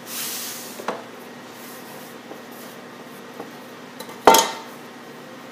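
Dough scraps and flour being scraped off a wooden work table with a hand scraper: a short scraping hiss at the start, a small click, then a sharp knock with a brief ringing tail about four seconds in, the loudest sound.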